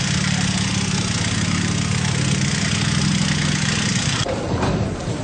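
An engine idling close by, a steady low drone under a loud hiss, cutting off abruptly about four seconds in.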